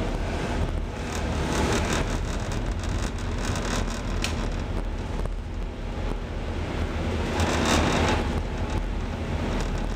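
Steady low drone of an anchor-handling vessel's engines under wind and sea noise. The rushing noise swells for about a second, about eight seconds in, as white water breaks at the stern.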